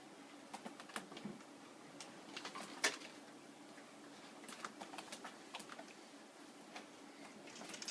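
Faint, irregular clicks and taps over low room noise, with one louder tap about three seconds in.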